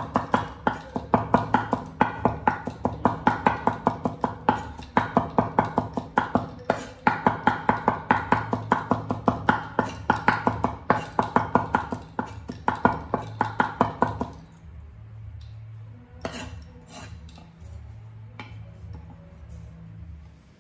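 Cleaver chopping rapidly on a wooden cutting board, mincing garlic, several even strokes a second. The chopping stops about two thirds of the way through, leaving a few light knocks of the blade gathering the mince.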